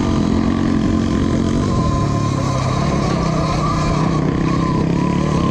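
E-Ride Pro SS electric dirt bike riding off-road: a steady motor whine that drifts slightly in pitch, over a constant rush of wind and tyre noise.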